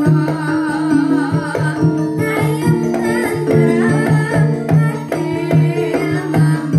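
Live band music played loud through a sound system: a woman singing into a microphone over electronic keyboard and drums with a steady beat.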